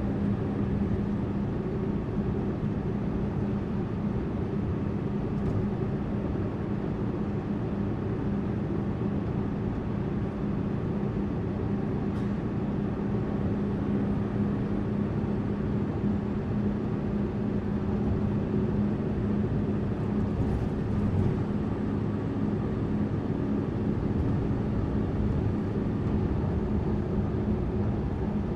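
Tourist bus on the move: a steady engine drone with one strong low hum over even road and tyre noise. A few faint clicks come through about a third of the way in and again about three-quarters through.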